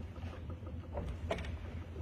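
A person sitting down on a wooden organ bench: a couple of short knocks and shuffles about a second in, over a steady low hum.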